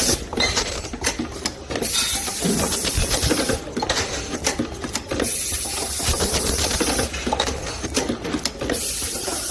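Automatic ultrasonic care-label welding machine running its cycle: a loud high hiss comes on for a second or two about every three and a half seconds, with rapid mechanical clicks and clatter between.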